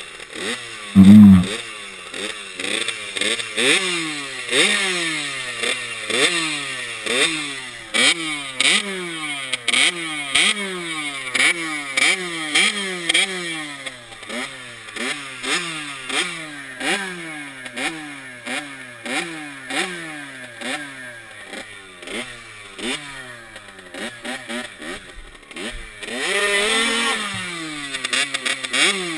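Suzuki RM65 65cc two-stroke single-cylinder dirt bike engine running and revved in short blips, its pitch rising and falling about once a second. There is a loud thump about a second in, and a longer, louder rev near the end.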